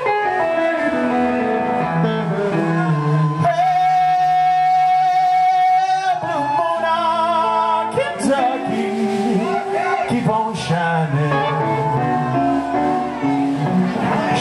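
Live rockabilly trio playing: electric guitar, upright bass and drums, with a man singing. A long held note comes a few seconds in.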